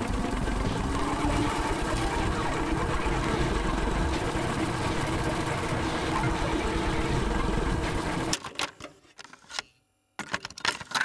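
Tape-rewind sound effect: a fast, steady mechanical whirring chatter that cuts off suddenly about eight seconds in, followed by a few sharp clicks like a tape deck's mechanism.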